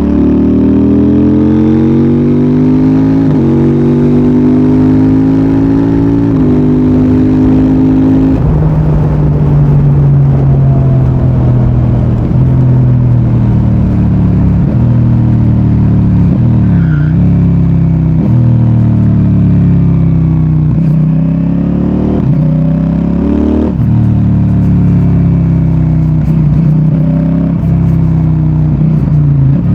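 CFMOTO 800NK's parallel-twin engine accelerating hard, revs climbing through three quick upshifts about 3, 6 and 8 seconds in. It then runs at a steadier pace, with the throttle closing and reopening several times in the second half.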